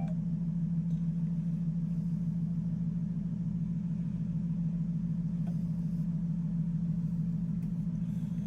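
Steady low hum, unchanging in pitch and level, like a motor or other machine running.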